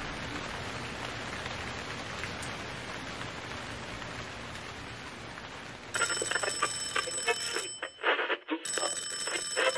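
Steady rain falling. About six seconds in, a rapidly struck bell starts ringing loudly, stops for under a second, then rings again.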